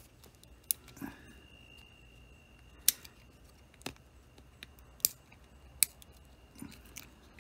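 Plastic case of a FLIR ONE Gen 2 thermal camera being pried apart by hand with a plastic pry tool: a scattered series of sharp plastic clicks and snaps as the clips let go, the loudest about three seconds in.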